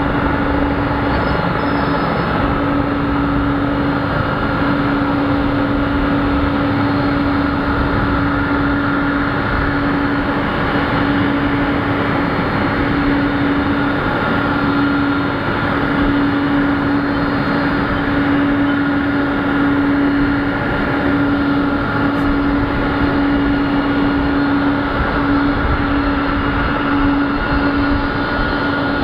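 USAF VC-32A (Boeing 757) jet running on the stand: a loud, steady hum with a high whine above it, unchanging throughout.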